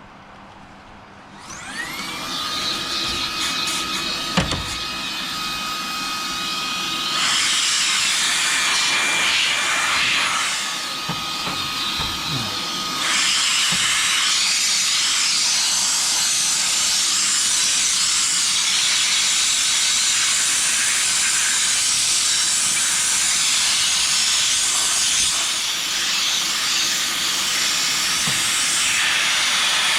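A cordless power tool's electric motor spins up with a steady whine under a loud rush of air. The rush grows stronger twice, about seven seconds in and again about thirteen seconds in, with a brief drop between. It runs steadily and cuts off near the end.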